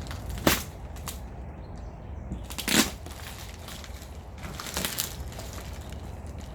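A cardboard box and its packing being cut open and handled, with crackling and a few sharp snaps. The loudest snap comes about three seconds in.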